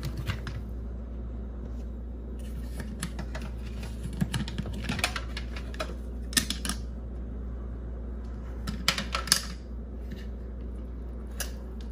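Scattered light clicks and taps of a slow cooker's glass lid and its plastic latch clips being handled and unclipped, over a steady low hum.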